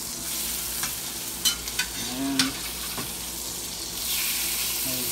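Speckled trout fillets sizzling steadily in hot butter in a nonstick frying pan, with a few sharp clicks and scrapes of a metal fish spatula against the pan as the fillets are turned.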